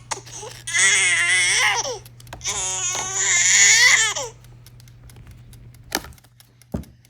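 Newborn baby crying: two long wavering wails, then the crying stops and a few small clicks and a knock follow.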